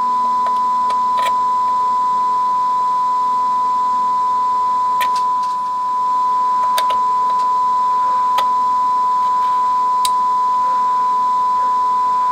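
Steady 1 kHz sine test tone driving the amplifier at about 10 watts into 8 ohms while its peak power meters are calibrated. A few faint clicks sound through it, and the tone dips briefly about halfway through.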